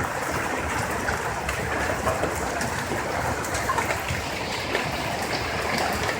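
Steady rain falling, a constant patter with scattered small drops.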